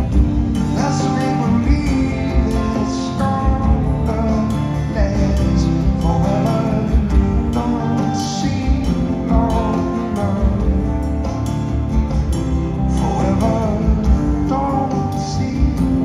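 Live band music played in a concert hall: strummed acoustic guitar with electric bass and drums, heard from the audience.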